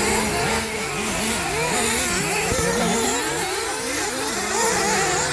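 Several radio-controlled off-road buggies' small engines, each whining as it revs up and down, overlapping as they race around the track.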